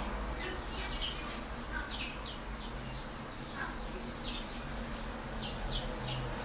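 Grey singer × serin hybrid finch twittering: a quick series of short, high, downward-sweeping chirps, several a second, over a low steady hum.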